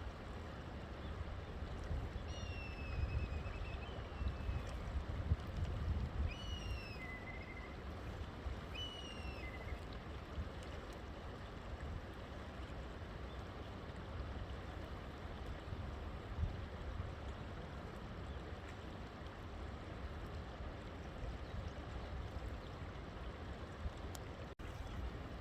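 A river flowing steadily. Between about two and ten seconds in, a bird gives four or five short whistled calls, most of them falling in pitch.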